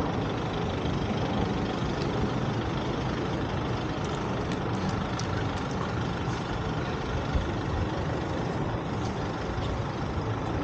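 City street traffic: heavy vehicles' engines running and idling under a steady wash of road noise.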